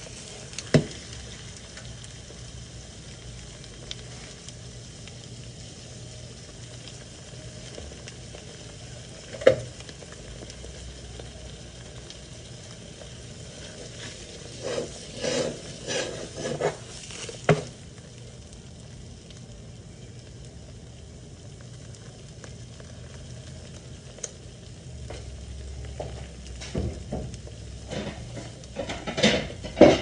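Four eggs sizzling steadily as they fry over easy in a nonstick frying pan. A few knocks and clatters of the pan being handled on the glass-top stove: a sharp one about nine seconds in, a cluster between about fifteen and eighteen seconds in, and more near the end.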